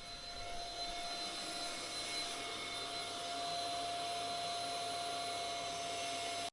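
A steady motor hum with an even hiss and a thin constant whine.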